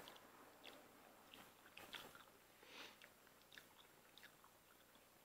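Faint eating sounds: quiet chewing with a few small clicks as a piece of lobster shell is picked apart by hand.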